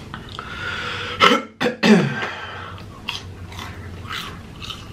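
A man clears his throat with two sharp, loud coughs about a second in, the second falling in pitch.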